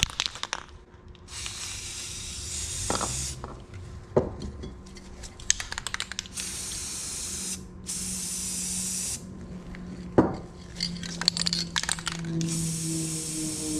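Aerosol spray paint can spraying onto a tub of water in about four separate bursts of hiss, each one to two seconds long, laying paint on the water's surface for hydro dipping. Short clicks and rattles come between the bursts.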